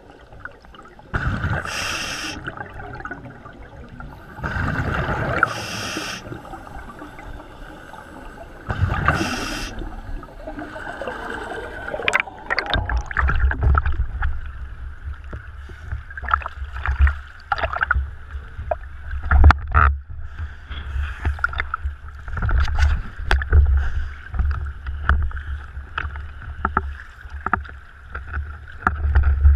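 Scuba breathing through a regulator underwater: three loud breaths about every three and a half seconds, with bubbles rushing out. About twelve seconds in, after surfacing, choppy sea waves slap and splash against the camera housing, with a low buffeting rumble.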